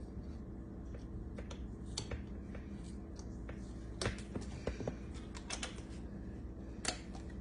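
Irregular clicks and crackles from the plastic cap and seal of a salad-dressing bottle being worked open by hand, over a steady low hum.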